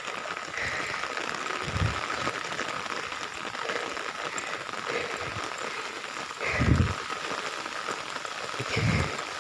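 Heavy rain falling steadily, with three dull low thumps, the loudest about two thirds of the way in.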